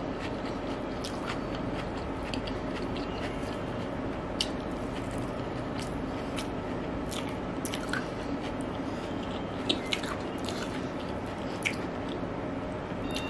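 Close-up chewing of rice biryani eaten by hand, with scattered wet mouth clicks and smacks over a steady background hiss.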